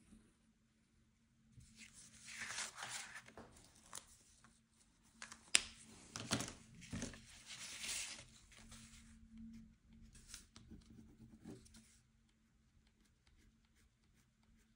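Scratchy rustling and tearing sounds of paper being handled, in irregular bursts for several seconds, with a sharp click about five and a half seconds in.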